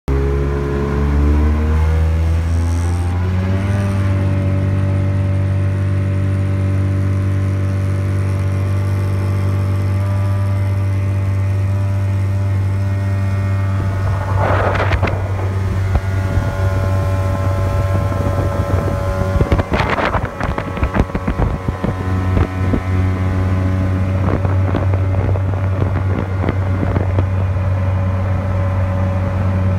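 Motorboat engine rising in pitch as it speeds up over the first few seconds, then running steadily at speed. Short noisy bursts cut in about halfway through and again about two-thirds of the way in.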